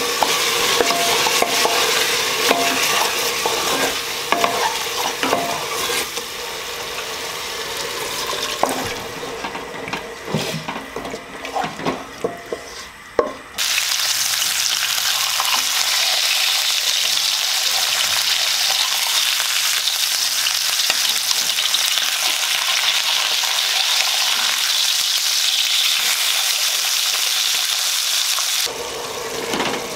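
A wooden spatula stirs and scrapes a spiced pork mixture in an aluminium pressure cooker, with small knocks against the pot over a light sizzle. About halfway through, the sound changes abruptly to pork slices frying in hot fat in an iron pan: a steady, loud sizzle as tongs turn the meat.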